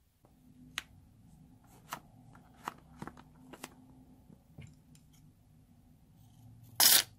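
A few light clicks and taps of handling, then near the end one short, loud snip of scissors cutting through the rubber neck of a slime-filled balloon.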